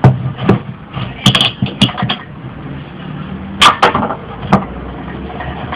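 A spanner and small metal stove parts being handled on a wooden table: a run of irregular sharp clicks and knocks, clustered about a second in and again near the end, over a faint steady low hum.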